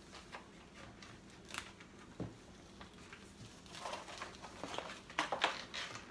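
Plastic and cardboard toy packaging being handled and opened: soft rustling and crinkling with scattered small clicks and taps, busier in the last couple of seconds.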